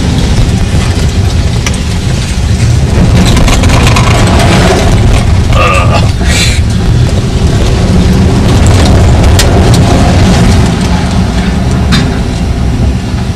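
Loud engine and road rumble inside a moving truck's cab, with frequent knocks and rattles, and a brief higher-pitched sound about halfway through.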